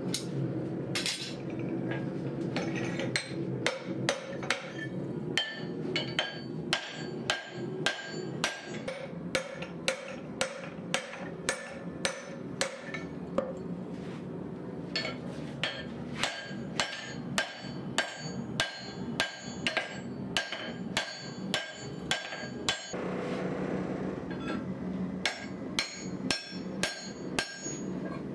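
Hand hammer striking red-hot axe steel in forging, about two blows a second, each with a short metallic ring, broken by a couple of brief pauses. A steady low rumble runs underneath.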